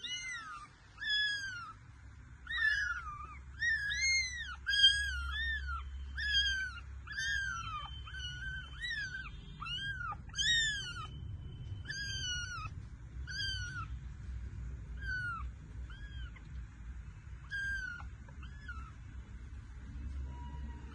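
Persian kittens mewing again and again: short, high-pitched mews that rise and fall, about one or two a second, coming thinner in the second half.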